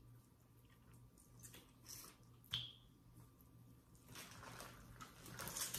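Quiet eating sounds: faint chewing and small wet clicks, with one sharper click about two and a half seconds in. From about four seconds in, a plastic bag of seafood boil rustles as hands dig through it. A faint low hum runs underneath.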